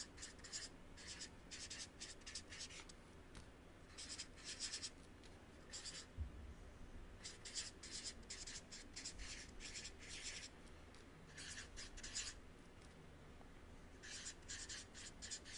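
Faint felt-tip marker writing on paper, in clusters of short scratching strokes with brief pauses between letters.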